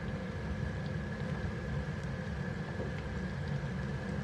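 Thekua (jaggery-dough cakes) deep-frying in oil in a pan on a gas stove: a steady low rumble with a faint hum and a few small pops from the bubbling oil.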